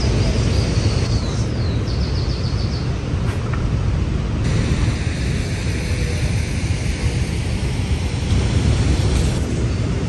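Outdoor walking ambience: a steady low rumble, with a short run of high chirping notes about one to three seconds in.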